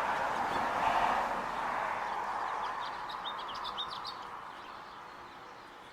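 A small songbird giving a quick series of short, high chirps about halfway through, over a rushing background noise that fades away.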